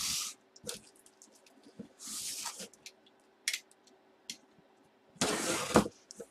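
A cardboard shipping box being cut and pulled open: short scraping and tearing sounds of tape and cardboard, with a longer, louder rip near the end.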